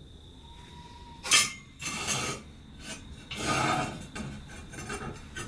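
Metal parts being handled: a sharp knock just over a second in, followed by two stretches of scraping and rubbing.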